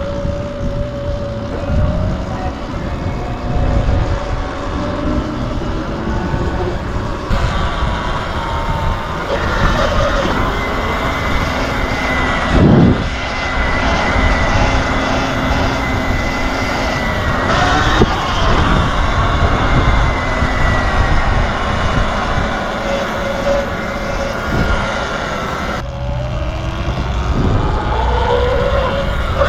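Sur-Ron electric dirt bike riding: a thin motor whine that rises and falls with speed over heavy wind rumble on the microphone, with one brief thump about thirteen seconds in.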